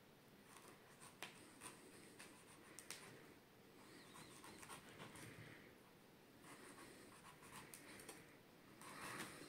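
Faint sound of a kitchen knife cutting through a peeled pineapple on a wooden cutting board: a few soft clicks and light scraping.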